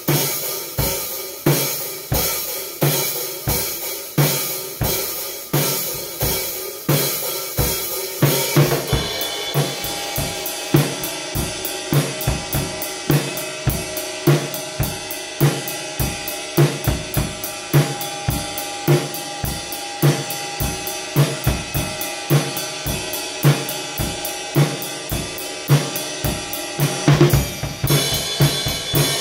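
Drum kit being played with sticks: a steady beat of about two hits a second with bass drum, snare and washing cymbals. About nine seconds in it changes to a busier groove, and it shifts again near the end.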